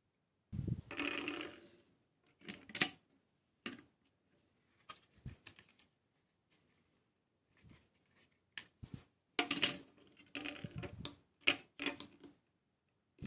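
Small parts of a diecast car model kit being handled and fitted: an irregular run of light clicks, taps and brief rustles. The busiest stretches come about half a second in and again near the end.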